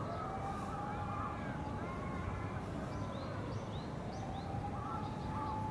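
Outdoor park ambience: small birds chirping in short repeated calls over a steady low rumble of the surrounding city, with faint distant voices.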